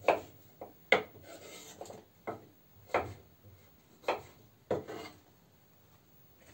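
Kitchen knife cutting food on a wooden cutting board: about six sharp knocks of the blade on the wood at uneven intervals, with some scraping in between, stopping about five seconds in.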